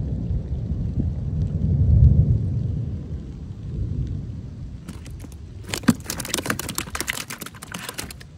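A low rumble over the first few seconds. Then, from about five seconds in, a rapid patter of slaps and taps as a freshly caught bluegill flops on the plastic deck of a kayak, stopping abruptly near the end.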